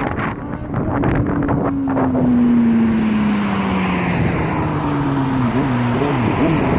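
Motorcycle engine running while riding, with wind rushing over the microphone; the engine note sinks slowly over several seconds, then rises and falls a few times near the end.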